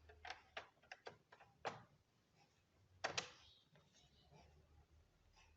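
Light plastic clicks and knocks of a laptop's bottom cover being fitted back into place: a quick run of small clicks in the first two seconds, then a louder double click about three seconds in as it snaps home.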